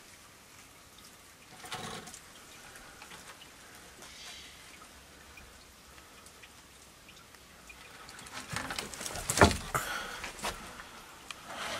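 Wooden plank cover of a floor pit being handled: a scrape and knock of boards as it is lifted about two seconds in, then a run of wooden knocks and clatter from about eight seconds in as it is set back down, the loudest knock about nine and a half seconds in.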